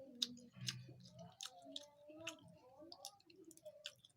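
A person chewing food close to the microphone, with many short, irregular wet mouth clicks and smacks.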